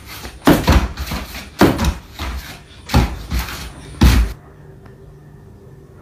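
A run of loud thumps and bangs, about six in four seconds, from a person jumping and knocking against a door. Near the end they stop and only a faint steady hum is left.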